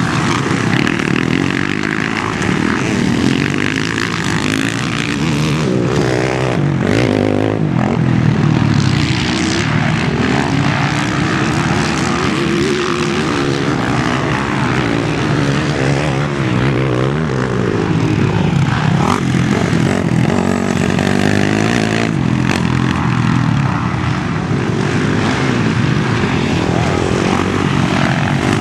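Motocross motorcycle engines revving on the track, their pitch rising and falling with the throttle in a continuous loud drone.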